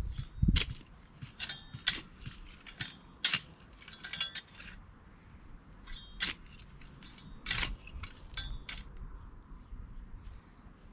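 Steel garden fork digging into stony soil, its tines scraping and clinking against stones in irregular strokes, several of them with a short metallic ring. The strokes thin out and stop about nine seconds in.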